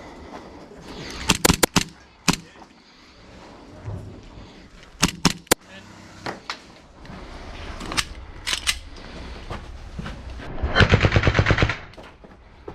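Gel blasters firing: sharp pops in single shots and short quick strings, then a rapid full-auto burst lasting about a second near the end.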